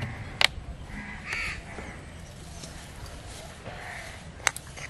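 Crows cawing a few times, with two sharp clicks, one about half a second in and one near the end, louder than the calls.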